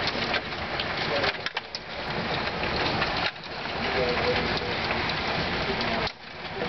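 Hail and rain pelting a paved driveway, lawn and shrubs: a dense, steady clatter of countless small impacts. The level dips briefly about a second and a half in, again a little after three seconds, and more deeply about six seconds in.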